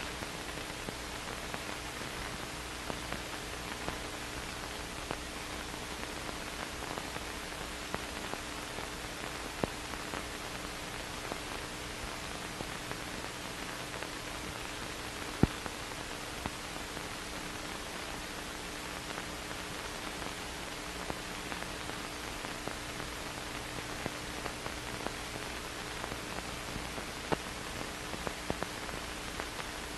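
Steady hiss with a faint hum and scattered clicks and pops: the background noise of an old film soundtrack, with no live sound of the scene. One pop about halfway through stands out above the rest.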